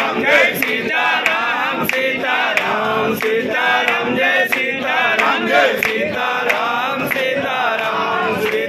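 A group of voices chanting the Hindu aarti in unison, with a sharp beat keeping time about every half second or so.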